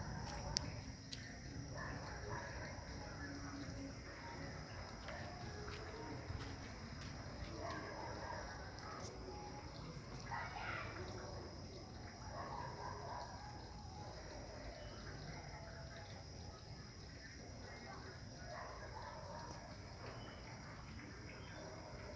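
Night insects chirping in a fast, even, high-pitched pulse, over a low steady background noise.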